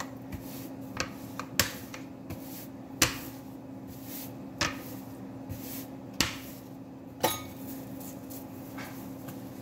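Metal rolling pin knocking and clattering against a plastic-covered table as pizza dough is rolled out: a series of sharp knocks at uneven intervals, the loudest about three seconds in, over a steady low hum.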